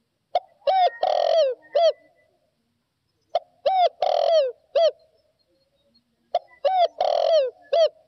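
Spotted dove cooing its song three times, about three seconds apart. Each phrase is a run of five coos, the fourth one drawn out: the clear, true-toned call prized in a decoy dove.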